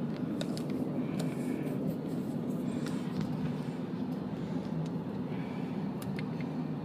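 Steady low hum inside a car, with a few light scattered clicks.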